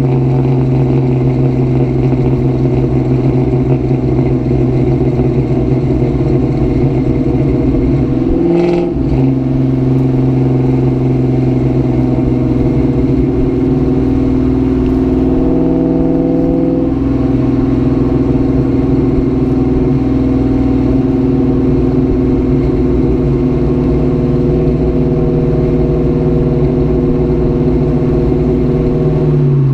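2004 Mustang GT's 4.6-litre V8 running steadily, likely under way. There is a brief break in the engine note about nine seconds in and a short rise in pitch around sixteen seconds.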